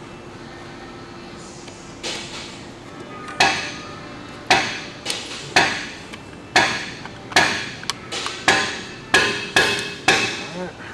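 A series of about nine sharp, ringing knocks, roughly one a second, starting about three seconds in. These are blows struck by hand.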